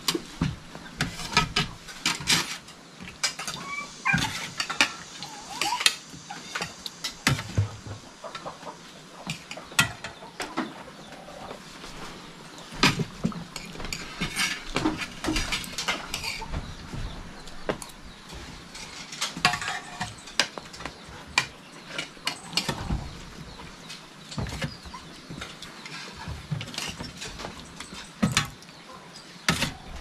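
Irregular clinks and knocks of people eating, utensils and dishes, scattered through, with a few short clucking calls in between.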